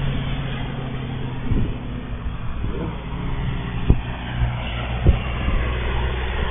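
Agusta helicopter flying in the distance, a low steady hum, with wind buffeting the microphone and a few short thumps, the loudest about four and five seconds in.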